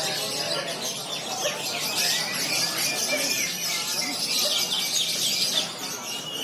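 Lovebirds chirping, with rapid high trills in dense, overlapping bursts.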